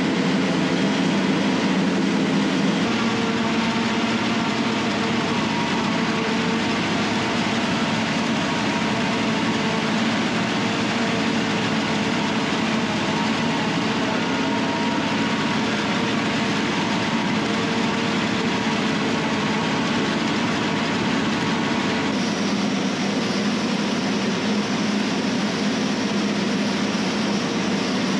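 John Deere self-propelled forage harvester running steadily under load, its heavy diesel engine and cutterhead going as chopped corn silage blows into a truck box.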